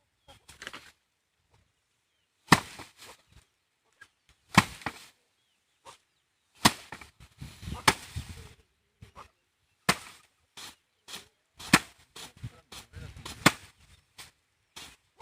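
Sheaves of rice struck by hand against a threshing surface to knock the grain loose: a sharp whack about every two seconds, with softer rustling of straw between.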